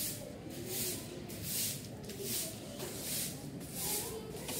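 Broom sweeping a dusty concrete courtyard floor in brisk, regular strokes, each one a short swish, about three every two seconds.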